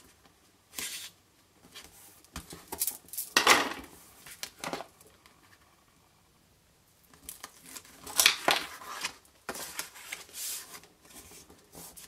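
Tear & Tape double-sided adhesive tape being pulled off its roll, torn and its liner peeled away, heard as several short ripping sounds with a quiet stretch in the middle, between quieter rustles of card being handled and smoothed down.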